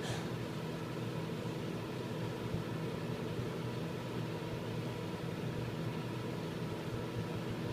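Microwave oven running while heating a cup of water: a steady electrical hum with a fan-like hiss, unchanging throughout.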